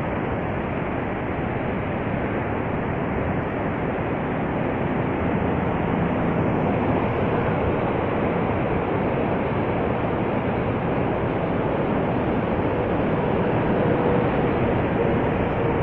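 Steady, unbroken rush of water from Niagara's Horseshoe Falls plunging into the gorge.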